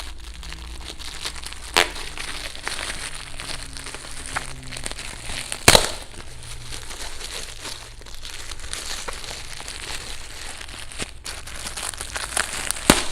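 Parcel packaging being torn and opened by hand: continuous rustling of the wrapping, with sharp snaps about two seconds in, about six seconds in (the loudest), and near the end.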